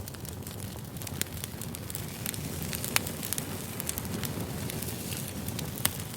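Firewood burning: a steady low rumble with scattered sharp crackles and pops, the loudest pop about three seconds in.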